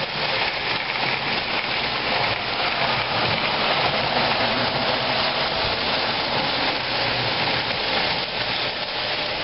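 Lionel O gauge model trains running on the layout's track, a steady rushing rumble of wheels and motors.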